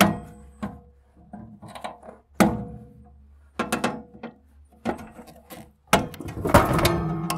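Hand wire cutters snipping the cords inside an old welder's steel cabinet: a string of sharp snaps, several of them followed by a ringing metallic tone.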